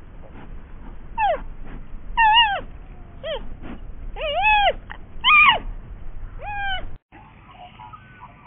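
A series of six short, clear animal calls about a second apart, each rising and then falling in pitch. The calls stop abruptly about seven seconds in.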